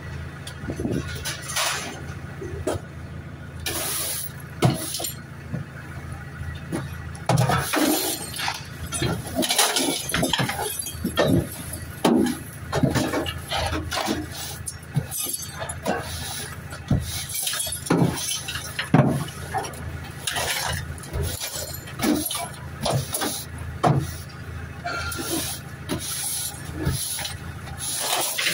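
Scrap metal being unloaded from a van and thrown onto a scrap pile: repeated irregular clanks, clatters and crashes of metal hitting metal, over a steady low engine hum.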